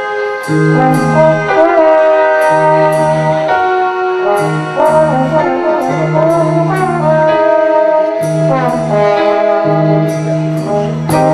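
Live big band's horn section playing held brass chords over a walking bass line, with the drummer's cymbals striking regularly throughout.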